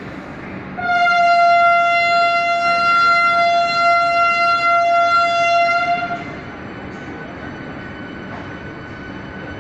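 Vande Bharat Express train horn sounding one long, steady blast of about five seconds as the train moves off along the platform, over a steady low rumble. A fainter high steady tone carries on after the horn stops.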